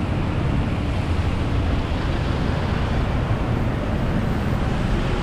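Steady rushing wind noise on the microphone of a camera carried on a moving bicycle, with tyre and road noise underneath.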